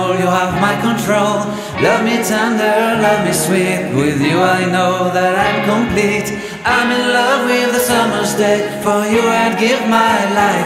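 Background music: a song with a sung melody.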